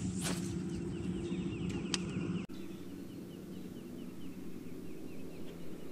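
Steady low hum of a bass boat's electric trolling motor, a little quieter after about two and a half seconds, with a bird chirping in a quick run of short notes behind it.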